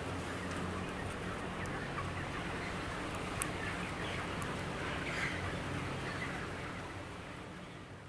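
A large flock of broiler chickens, about four weeks old, packed in a shed: a dense, steady din of clucking and peeping over a steady low hum, fading out near the end.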